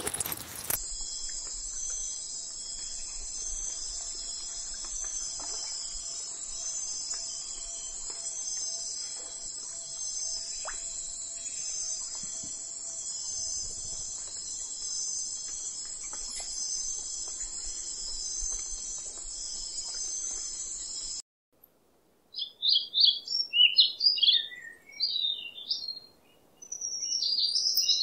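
The last of a dog's bark, then a steady, high-pitched insect chorus that pulses regularly, like crickets or cicadas, until it cuts off abruptly about three quarters through. After a moment's silence, flamingos give loud, high chirping calls.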